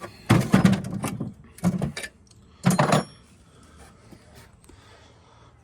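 Rattling clatter of hand tools being handled, in three bursts, the last with a brief high metallic ring.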